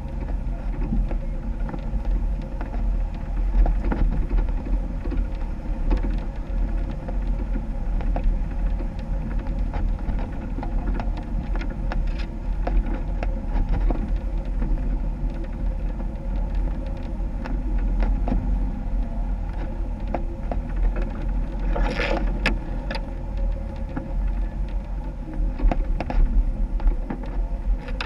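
Jeep engine running steadily during off-road driving, a low rumble with scattered clicks and rattles. A brief, sharper noise cuts through about three quarters of the way in.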